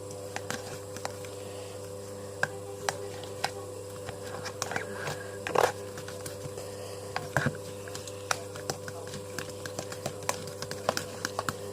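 Microwave oven running with a steady electrical hum, with scattered light clicks and taps over it.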